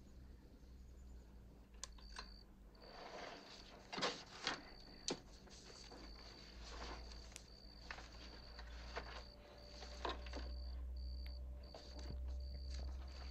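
Sheets of paper being rustled and shuffled on a desk, with scattered small knocks and clicks. A high chirp repeats steadily from about two seconds in, over a low room hum.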